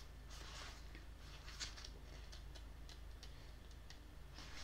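Pages of a small paperback booklet being leafed through by hand: a series of faint, short paper flicks and rustles.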